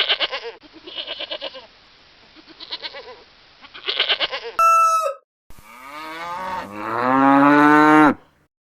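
Sheep bleating several times with a quavering voice, then a short higher call, then a cow giving one long, loud moo that rises in pitch and stops about a second before the end.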